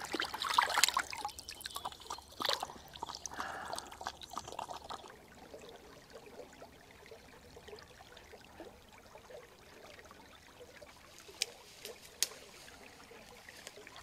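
Water splashed by hand for the first few seconds, then a small creek trickling and gurgling over old logs, with two sharp ticks near the end.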